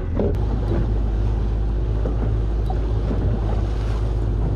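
Small fishing boat's outboard motor running steadily under way, with wind rumbling on the microphone and the sea washing past the hull.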